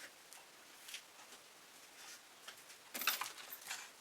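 Spatula scraping and smoothing wet fluid acrylic paint across a stretched canvas: faint short scrapes, with a cluster of them about three seconds in.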